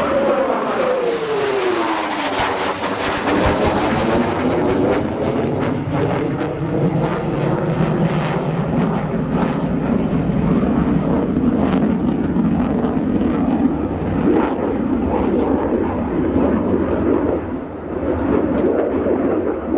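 An F-15 fighter's twin turbofan engines passing over during a display maneuver: a high whine falls in pitch over the first two seconds, with a spell of crackling as it goes by, then a steady, heavy jet rumble that dips briefly near the end.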